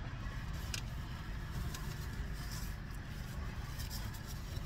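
Steady rumble of highway traffic, with a few faint clicks.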